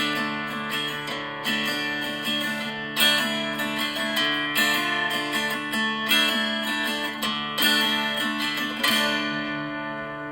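Background music: acoustic guitar strumming, a fresh strum about every second and a half.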